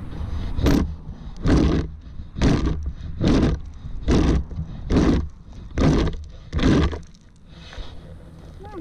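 Plastic lawn rake dragged across dry grass in eight steady scraping strokes, about one a second, raking stones out of the lawn; the strokes stop about seven seconds in. A low wind rumble on the microphone runs beneath.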